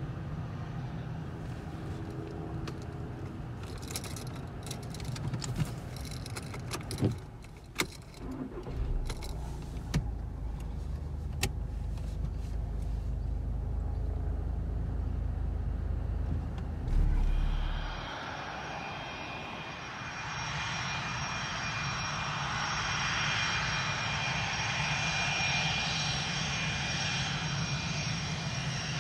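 A car's engine idling as a low, steady rumble, with several sharp clicks and a heavy thump near the middle. Then an F/A-18 Hornet fighter's twin jet engines take over: a steady, growing hiss with high whistling tones as the jet rolls down the runway after landing.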